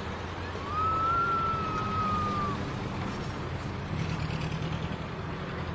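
City parking-lot ambience: a steady low rumble of traffic and engines. About half a second in, a single thin high squeal rises briefly, then slowly sinks over about two seconds.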